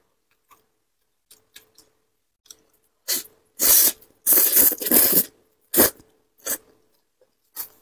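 A person slurping a big mouthful of thick noodles in black bean sauce: after a few seconds of faint mouth clicks, a run of loud slurps about three seconds in, then a few shorter slurps and chewing.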